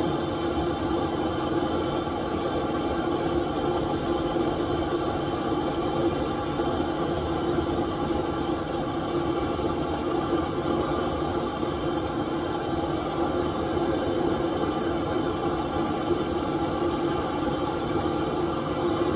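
A steady machine drone with several constant tones, unchanging throughout.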